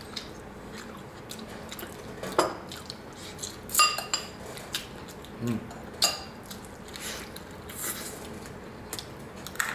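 Metal spoon and chopsticks tapping and scraping against ceramic bowls, scattered taps with one sharper ringing clink about four seconds in.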